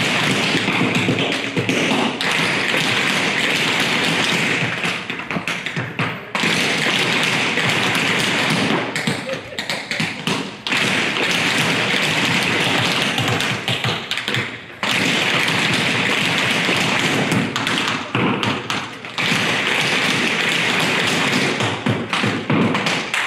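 Many dancers' hard-soled shoes tapping and stamping on a wooden floor in rapid, dense patterns, with brief breaks between phrases about six, ten and fifteen seconds in.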